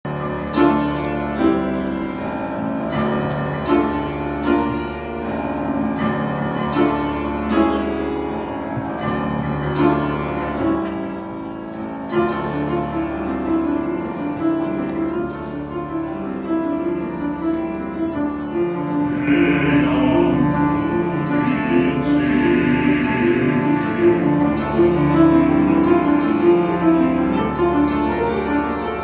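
A mixed choir with piano accompaniment. Clear separate piano notes lead for about the first twelve seconds, and fuller held chords follow.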